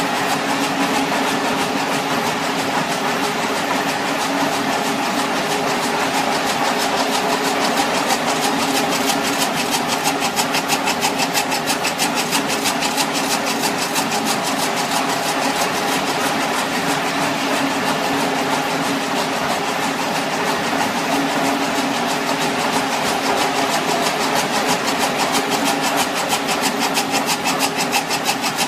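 Helical tomotherapy unit running during beam delivery: a steady, loud machine hum with several constant tones, overlaid by a fast, even clicking from its binary collimator leaves opening and closing, which grows stronger about halfway through.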